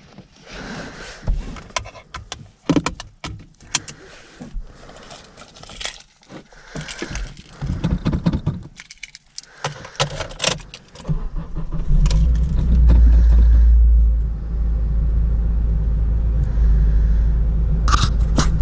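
Keys jangling with scattered clicks and knocks, then about eleven seconds in the Acura RSX's four-cylinder engine starts, runs louder for a couple of seconds and settles to a steady idle.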